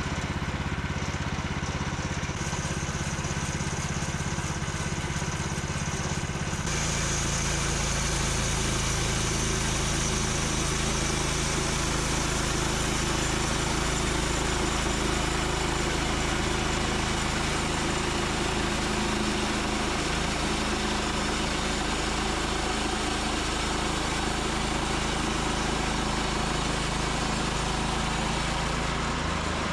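Chainsaw mill running a long rip cut through a log, the saw engine holding a steady note that shifts to a new pitch about seven seconds in.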